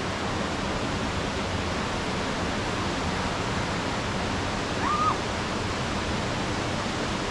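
Steady rushing of river water, an even noise with no change. About five seconds in, one short high call rises and falls briefly above it.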